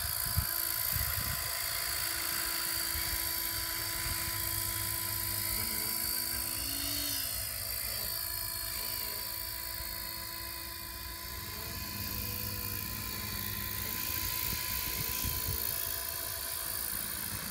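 Radio-controlled scale Gazelle helicopter built on an Align T-Rex 600, flying: a steady whine from its motor and rotors, with the pitch briefly rising and falling about seven seconds in.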